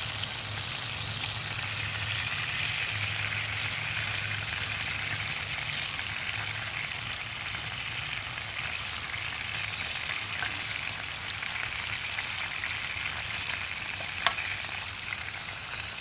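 Bacon and eggs sizzling in a cast iron skillet: a steady frying hiss, with one sharp click near the end.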